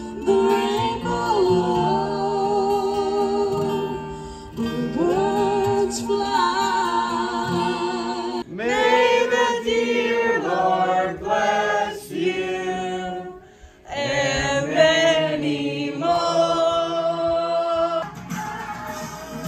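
Music: voices singing long held notes with vibrato, sounding like several singers together.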